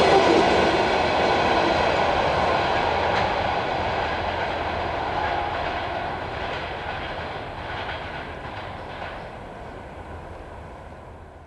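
Passenger train coaches rolling away on the rails, their rumble fading steadily into the distance, with faint clicks from the wheels over the rail joints.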